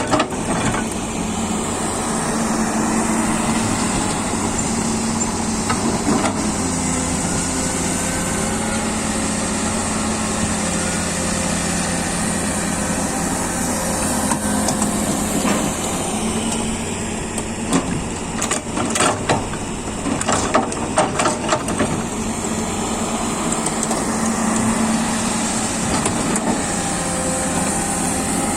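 Komatsu PC200 hydraulic excavator's diesel engine running steadily under working load, its pitch rising and falling as it works, with a cluster of sharp knocks and clatters about two-thirds of the way through.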